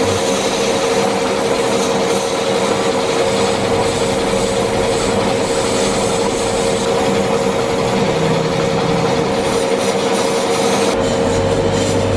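Airbrushing setup running: a steady mechanical hum with a constant rushing hiss of air as black paint is sprayed.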